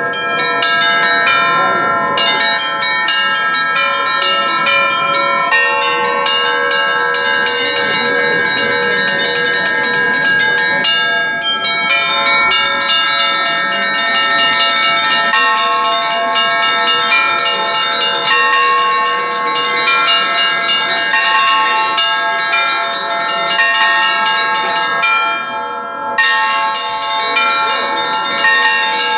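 Russian festive bell ringing: a set of bells struck in a fast, continuous chiming pattern, with many bell tones overlapping and ringing on. The sound thins out briefly near the end, then the full chime resumes.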